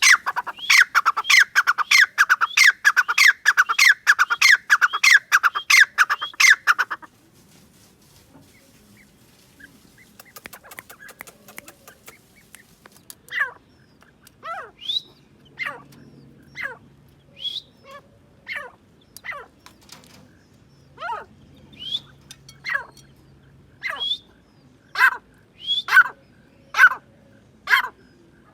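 Grey francolin calling: a loud, rapid run of repeated call notes for the first seven seconds, then after a short lull a series of separate falling notes, about one a second, that grow louder toward the end.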